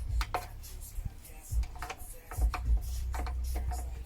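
Irregular clicks and knocks of a hand tool and door-trim parts being handled while a screw is taken out of the car door, over a low rumble.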